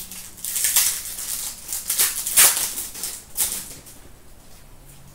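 Trading cards being slid and flicked through the hands, a run of quick, sharp swishes and flicks that thin out near the end.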